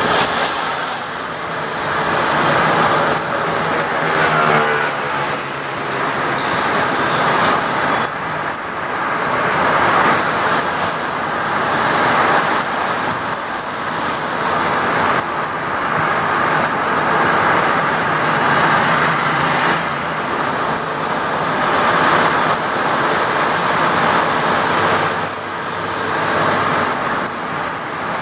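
Road and wind noise of a moving car, steady and loud, swelling and easing every couple of seconds, with a faint engine hum underneath.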